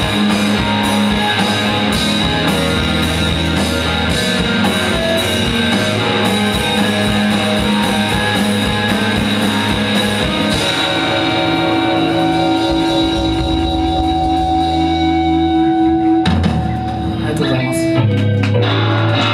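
Live rock band playing electric guitars over a drum kit. About halfway through, the steady drumming drops away and long held electric guitar notes ring on, with strumming picking up again near the end.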